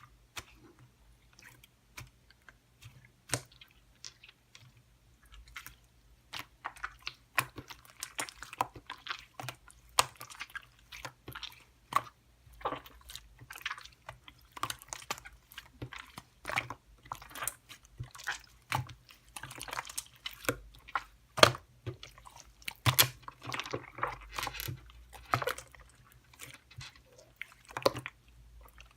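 Close, irregular crunching and crackling: sharp clicks that are sparse at first and grow dense from about six seconds in.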